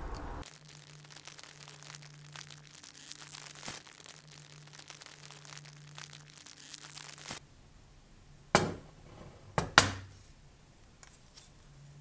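A crusty white corrosion layer on a diecast model car body crackling and crumbling as it is picked apart with a wooden stick: a dense run of small crackles that stops about seven seconds in. Near the end come a few sharp knocks about a second apart.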